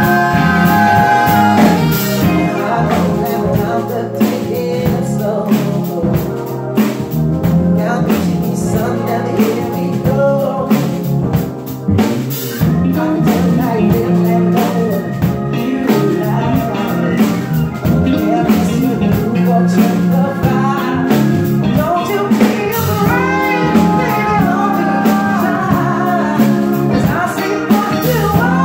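Live band music: a woman singing lead into a microphone over drums and bass guitar, loud and continuous.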